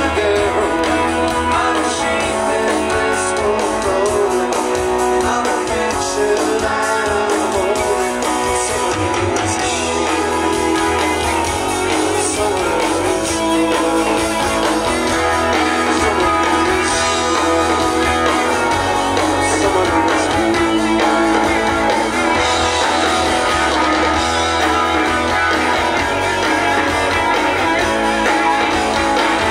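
Live rock band playing, with strummed guitars carrying a full, steady sound.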